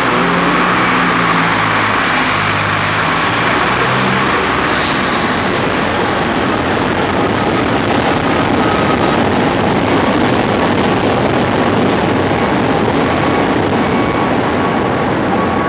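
Elevated train rumbling overhead: a loud, steady roar that holds without a break, with a low engine-like hum in the first few seconds.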